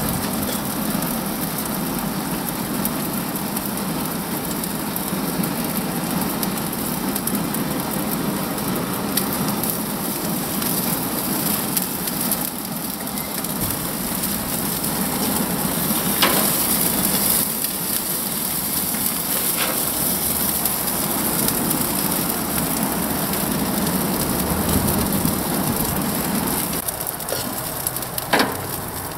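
Chicken pieces and a vegetable kebab sizzling on the grates of a gas grill, a steady hiss throughout. A few light clicks of stainless steel utensils come about halfway through and near the end.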